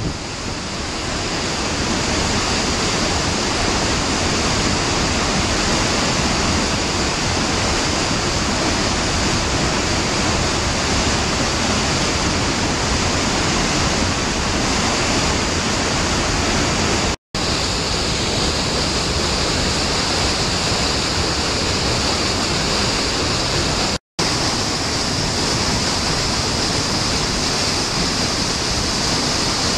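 Waterfall in spate after heavy rainfall: a loud, steady rush of falling water. It cuts out completely twice for an instant, past the middle and again a few seconds later.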